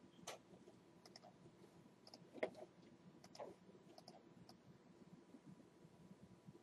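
Faint, scattered clicks of a computer mouse and keyboard, the loudest about two and a half seconds in, over near-silent room tone.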